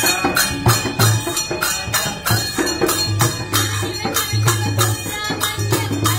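Music with a steady beat: jingling percussion struck about three times a second over a low drum.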